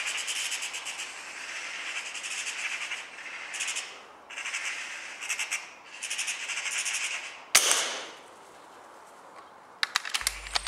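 Bursts of rapid, high rattling chatter, then a single sharp air-rifle shot about seven and a half seconds in, the loudest sound, with a short trailing tail. A few faint clicks follow near the end.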